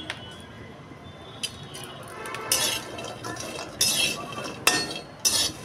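A metal spatula stirring walnut halves roasting in a metal kadhai, with four scraping, clinking strokes against the pan in the second half.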